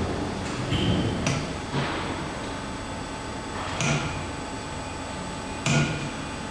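Universal testing machine running while it pulls a threaded rebar coupler splice in tension: a steady machine hum with four short, sharp, hissing cracks spread through, the loudest near the end.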